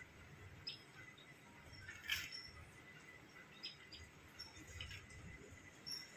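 Faint bird chirps, short high notes scattered every half second to a second, over a low room hum, with one louder, sharper note about two seconds in.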